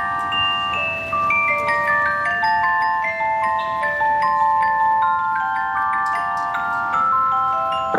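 Electronic keyboard playing an instrumental passage in a bell-like, glockenspiel-type voice: quick single notes in a winding, mostly descending melody, each note ringing on under the next.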